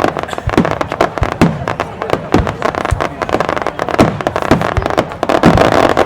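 Aerial fireworks shells bursting in rapid, irregular succession: a string of sharp bangs, several a second, many followed by a booming tail that falls in pitch.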